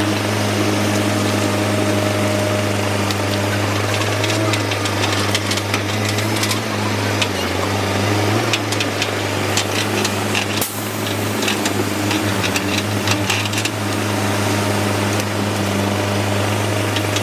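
Excavator's diesel engine running steadily, with scattered clanks and knocks in the middle stretch.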